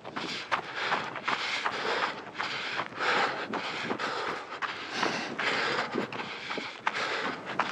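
Running footfalls on a trail, a steady rhythm of about two to three steps a second, with wind buffeting the microphone throughout.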